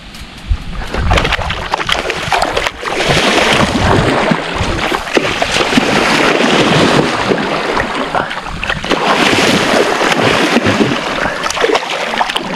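Wels catfish thrashing at the surface of shallow water: heavy, irregular splashing that starts about a second in and keeps churning.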